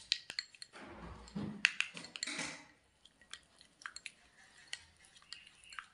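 White plastic spoon stirring a thick, creamy face-pack paste in a glass bowl: irregular clicks and taps of the spoon against the glass with soft squishing of the paste, busiest in the first two and a half seconds and sparser after.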